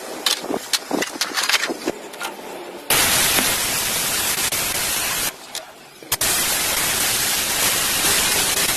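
Scattered clicks and knocks, then a loud steady hiss that runs for about two and a half seconds, stops briefly, and starts again for about three more seconds.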